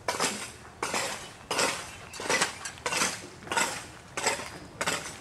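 Footsteps crunching on loose gravel at a walking pace, about one step every 0.7 seconds.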